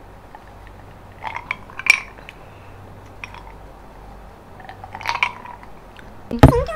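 Tableware clinking on dishes in two short clusters, the ringing clicks of utensils or glass set against plates. Near the end comes a sudden loud thump with a brief vocal sound.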